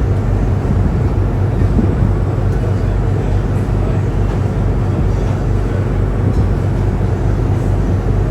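A tour boat's engine running steadily under way, a loud low drone heard on board.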